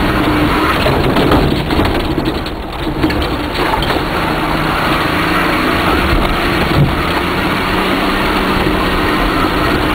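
Mercedes 4x4's engine running hard under load as it drives fast over a rough dirt and mud course, mixed with tyre and body noise and a few knocks, a sharp one about seven seconds in.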